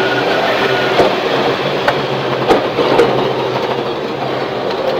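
In-cabin sound of a Subaru Impreza rally car's flat-four engine running hard on a gravel stage. Loud, steady engine and tyre-on-gravel noise, with a few sharp clicks near the middle.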